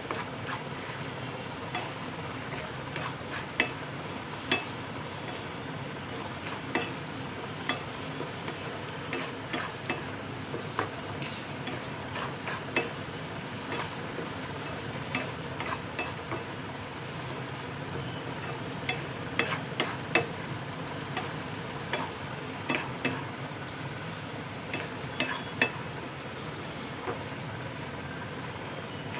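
A spatula stirring and scraping a thick coconut-and-sugar barfi mixture in a pan, with irregular clicks and scrapes against the pan over a steady low hiss. The mixture has cooked down to the stage where it leaves the sides of the pan.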